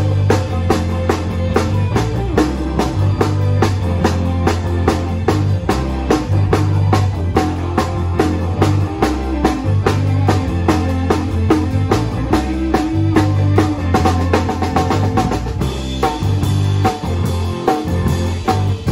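Live rock band led by a drum kit beat, with even kick and snare strikes about four times a second over a repeating bass line. Electric guitar comes forward near the end.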